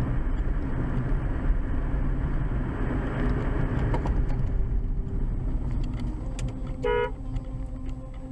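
Car interior road and engine noise while driving, with one short toot of a car horn about seven seconds in; the road noise eases off after it.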